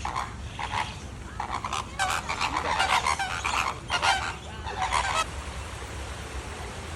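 Birds calling repeatedly in a loud, dense run of calls that stops about five seconds in.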